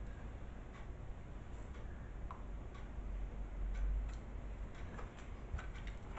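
Faint, irregular light clicks of a metal teaspoon against plastic tubs as dried chilli flakes are scooped out and tipped into a small plastic pot, over a low steady hum.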